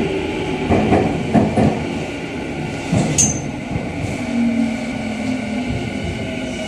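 Tokyu 5000 series subway train running through a tunnel, heard from inside the car: a steady rumble of wheels and motors, with a few knocks about a second in and a brief high squeal about three seconds in.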